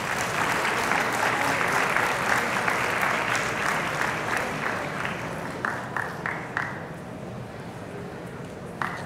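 Audience applauding. The applause swells over the first few seconds and dies away after about five seconds, leaving a few last single claps and one more near the end.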